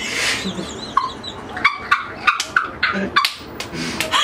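A woman laughing hard, in a string of short high-pitched bursts.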